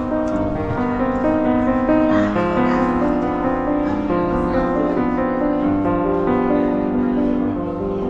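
Background music with held piano or keyboard notes.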